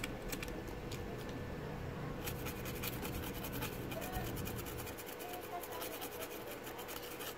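Small stiff brush scrubbing a printed circuit board around freshly soldered surface-mount parts, a faint dry scratchy brushing, to clean off flux residue. A faint steady hum runs underneath.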